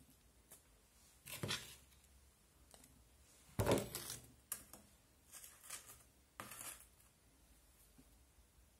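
Metal spoon scraping and dropping potting soil into a small plastic pot, with the pot and loose soil handled on a plastic tray: a few short scraping, rustling sounds, the loudest about three and a half seconds in.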